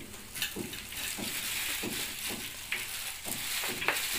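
Oil sizzling in a frying pan as rice-porridge patties fry, with a short scrape of chopsticks stirring batter in a steel bowl about every half second.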